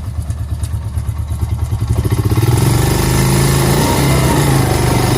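Honda TRX350 Rancher ATV's single-cylinder four-stroke engine running at a low pulsing idle, then revving up about two seconds in and holding the higher revs under load as the quad is driven to test the freshly repaired front differential locker.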